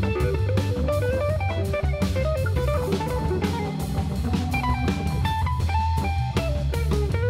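Live jazz trio of electric guitar, Hammond organ and drum kit. The guitar plays a quick single-note line over a sustained organ bass, and the drums keep time with steady cymbal strokes and hits.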